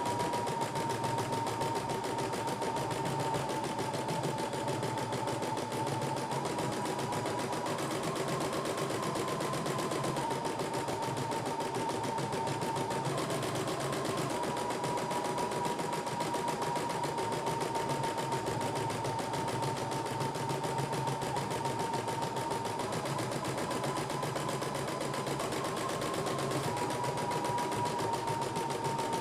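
CNY E960 embroidery machine stitching a design: a continuous rapid needle chatter over a steady motor whine that shifts slightly in pitch now and then.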